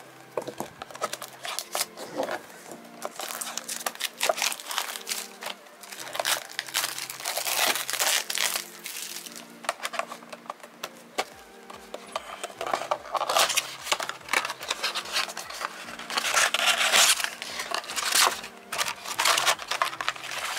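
Crinkling and tearing of plastic wrapping as a trading card blaster box is opened, in irregular rustling bursts, with background music.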